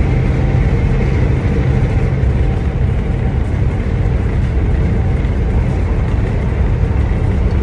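Steady drone inside a semi-truck's cab while cruising at highway speed: diesel engine and road noise with a few steady hums.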